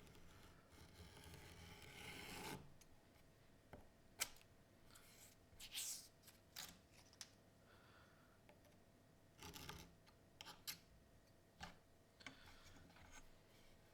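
Sharp knife drawn along a ruler, cutting through paper sheets: one longer slicing stroke that stops abruptly, then several shorter cuts and scrapes with a few light clicks, all quiet.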